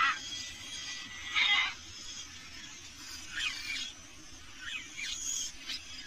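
Wild birds calling over a steady background hiss. The loudest is a short, noisy call about a second and a half in, followed by several quick calls that slide down in pitch.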